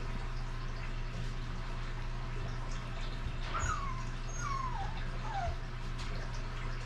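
Basset hound puppy whimpering: three short, falling squeaks about halfway through, over a steady low hum.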